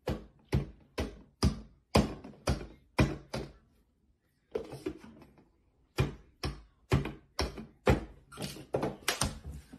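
Hands slapping down on a wooden tabletop in a steady rhythm, about two hits a second, with a short break a little before halfway.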